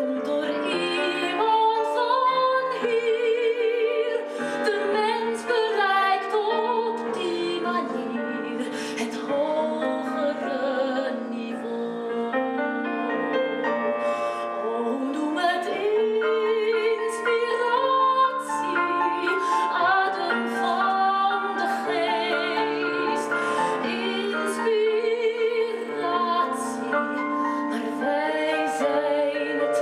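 A woman singing in an operatic style with vibrato over instrumental accompaniment.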